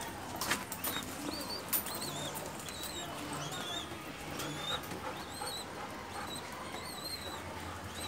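Birds in a pigeon loft: short high chirps repeat every half second or so, with faint low pigeon cooing under them. A couple of sharp knocks come in the first two seconds.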